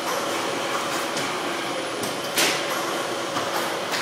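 Packaging-line conveyors and a checkweigher running steadily: a continuous mechanical hum with faint steady tones and scattered clacks of boxes and parts, one sharper clack about two and a half seconds in.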